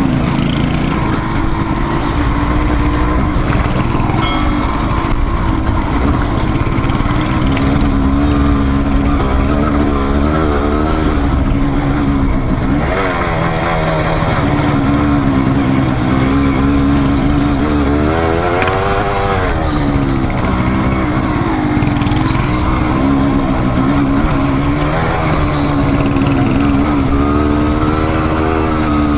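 Single-cylinder dual-sport motorcycle engine running under load on a trail ride, the revs rising and falling over and over as the throttle is worked. There is a sharp rev up and back down about two-thirds of the way through, and another near the end.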